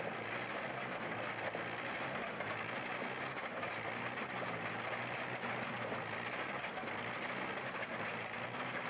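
The Multi-Ped walking tractor running steadily as it walks, driven by its 1936 Case Model S tractor engine and cam-driven steel feet.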